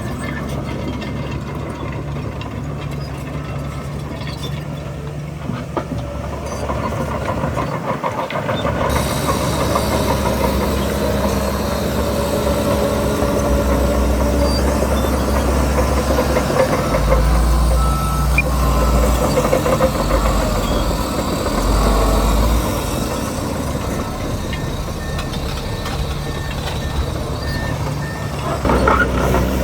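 Heavy diesel earthmoving machinery running steadily with a deep engine rumble, growing louder from about seven seconds in as it works.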